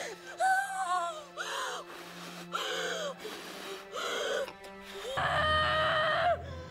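A woman in labour straining to push, giving four short gasping cries of pain and then one long loud scream of effort about five seconds in, over a low held music drone.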